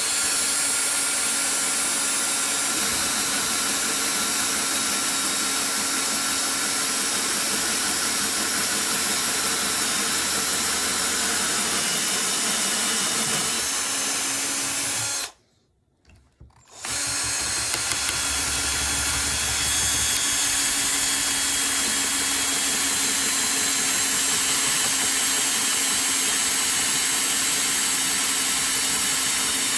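Corded or cordless power drill running steadily with a hole saw, cutting through the plastic of a motorcycle air box. It stops for about a second and a half midway, then cuts on.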